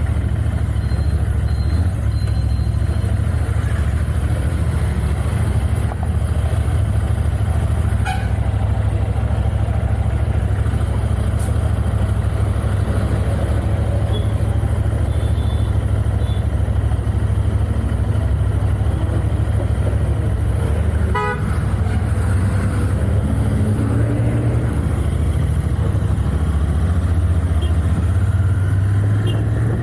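Royal Enfield Continental GT 650's parallel-twin engine running on its stock exhausts under way, a steady low drone that rises and falls in pitch a few times in the last third. A short, rapid pulsing sound about two-thirds of the way through.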